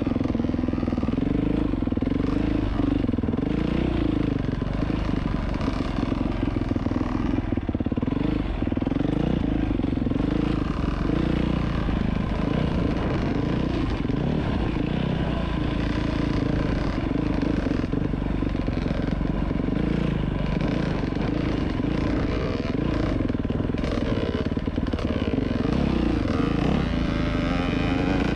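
Dirt bike engine running continuously under the rider, its revs rising and falling over and over as it is ridden.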